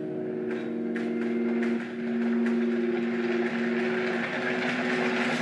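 Anime episode soundtrack: sustained low chords that shift pitch every second or so, under a steady hiss with scattered clicks.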